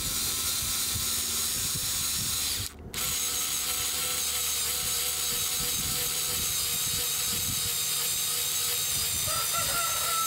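Werktough 4-volt cordless electric screwdriver's motor and gearbox running steadily as it drills a small twist bit down into a wooden board, with a brief pause about three seconds in.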